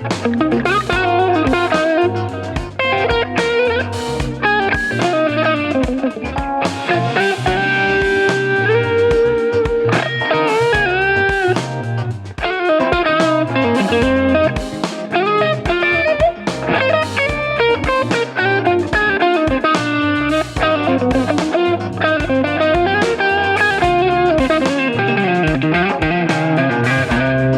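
Electric guitar played through newly installed Wilkinson high-output ceramic pickups, demonstrating their tone. The playing is continuous lead lines with frequent string bends and wavering notes over a steady low end.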